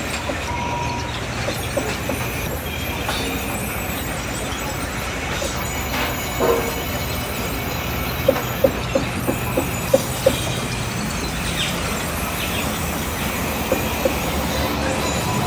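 Steady running noise of machinery, a low hum under a continuous rattle, with a run of short high squeaks about eight to ten seconds in.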